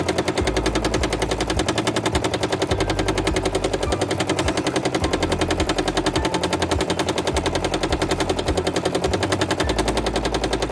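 Domestic sewing machine with a hopping foot stitching fast and steadily in free-motion quilting, a rapid even clatter of needle strokes, which stops abruptly near the end.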